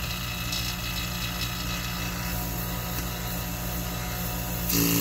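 VEVOR 1/4 HP single-stage rotary vane AC vacuum pump running steadily with its ports capped. Near the end the intake is uncapped and the pump suddenly gets louder as it starts drawing air.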